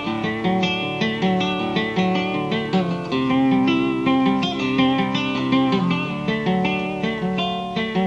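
Instrumental break of a folk-style song: plucked string instruments play a quick run of picked notes over held chords, with no voice.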